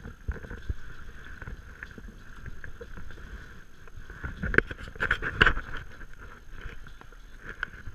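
Paddle strokes splashing and water sloshing around an inflatable stand-up paddleboard, with a run of louder splashes about four and a half to five and a half seconds in.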